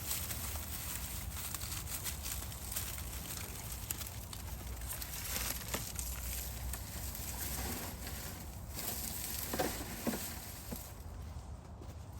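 Garden scissors snipping hydrangea flower heads amid rustling leaves, as a run of small crisp clicks, with a couple of sharper clicks about ten seconds in.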